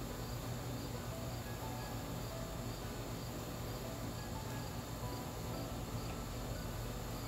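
Crickets chirping steadily in an even, repeating pattern, over a low steady hum.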